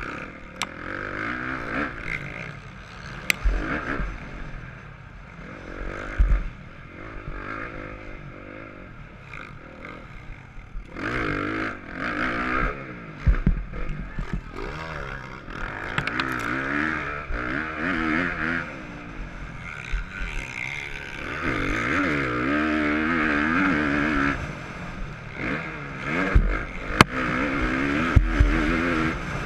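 Dirt bike engine heard from the bike's own camera while racing, revving up and down repeatedly as it accelerates and backs off. Wind noise on the microphone, and a few heavy low thumps about three, six, thirteen and twenty-seven seconds in.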